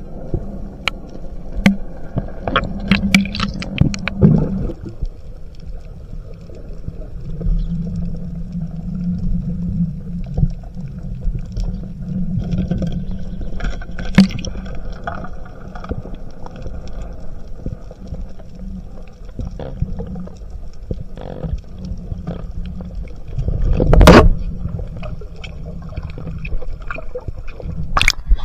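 Underwater noise heard through a speargun-mounted camera's waterproof housing: a steady muffled rumble of moving water with scattered sharp clicks and knocks from handling the speargun and its line, and a louder knock about 24 seconds in.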